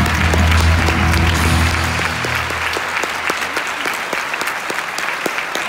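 Audience applauding, a dense patter of clapping, over background music that fades out about halfway through.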